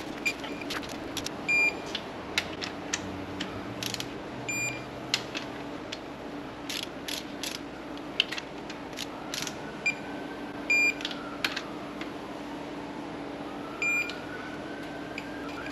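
Digital torque wrench tightening connecting-rod cap nuts: scattered ratchet clicks, with four short electronic beeps from the wrench as it reaches its set torque.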